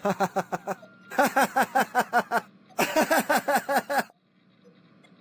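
Three bursts of rapid buzzing pulses, about seven a second, each around a second long with short gaps between, standing in for the data-burst tones of a fake Emergency Alert System alert.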